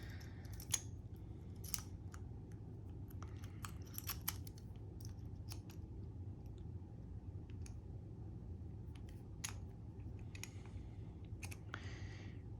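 Faint, irregular metallic clicks and scrapes of a disc detainer pick turning the discs inside a Davidson 70mm disc detainer padlock, over a low steady hum.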